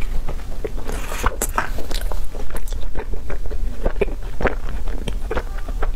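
Close-miked chewing of a frozen ice-cream treat: a run of short, irregular wet clicks and crunches in the mouth, with a brief hiss about a second in.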